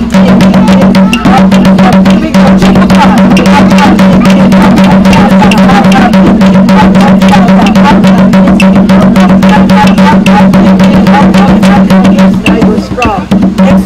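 Drumming with fast, dense strokes, very loud, over a steady low hum. The beating thins out near the end.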